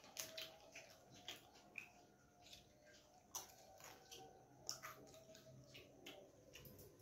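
Faint eating sounds: fingers mixing rice with dal on a stainless steel plate and soft chewing, heard as scattered small clicks and squishes.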